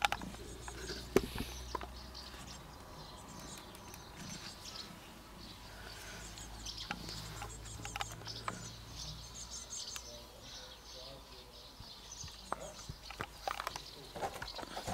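Outdoor ambience with birds chirping faintly and scattered small clicks and taps, the sharpest about a second in.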